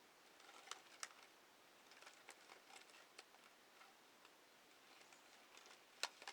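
Near silence with faint, scattered clicks and taps, the sharpest two about a second in and the loudest about six seconds in.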